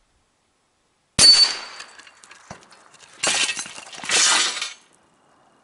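Wooden target stand with hanging steel plates collapsing: a sudden crash with a high metallic ring about a second in, scattered clattering, then two longer crashing rattles a couple of seconds later.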